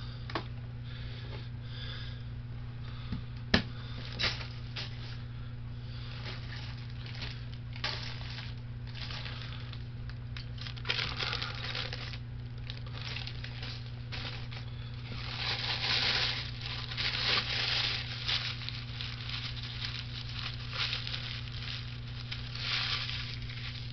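Snack bag crinkling and rustling in irregular bursts, loudest in the second half, with a few sharp clicks early on, over a steady low hum.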